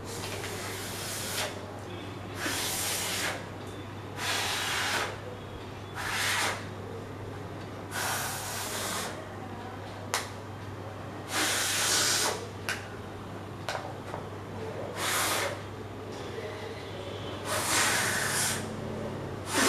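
Breath blown in short hissing puffs into a folded paper water bomb to inflate it, about nine blows a second or two apart.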